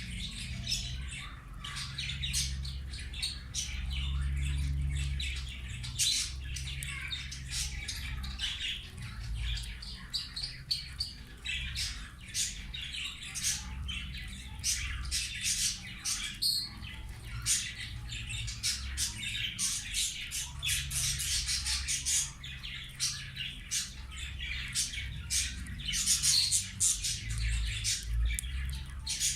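Several pet budgerigars chattering and squawking, a steady run of quick, scratchy, high-pitched calls with no pause.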